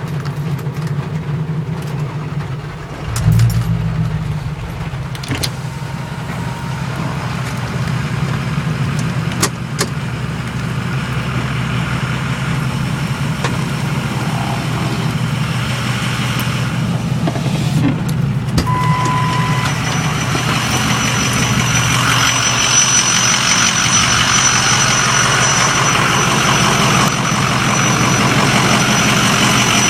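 Vehicle engine idling steadily, with a low thump about three seconds in. From about two-thirds of the way through, a thin, steady high-pitched squeal sounds over the engine, and the whole grows gradually louder.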